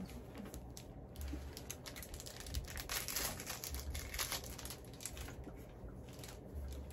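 Plastic candy wrapper crinkling as it is opened by hand, in irregular crackles that are densest about three seconds in.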